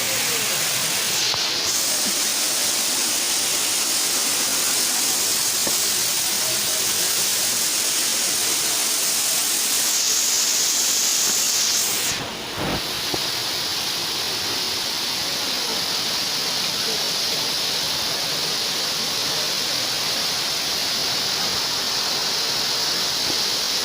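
Waterfall rushing: a steady hiss of falling water that dips briefly about twelve seconds in.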